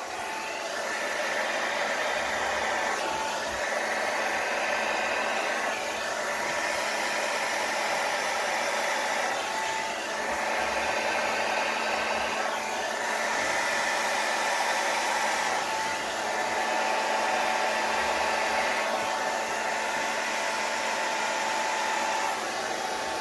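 Hair dryer blowing steadily at close range, used to fan wet acrylic paint across a painted surface. Its steady whine and rush of air change a little every few seconds as it is moved.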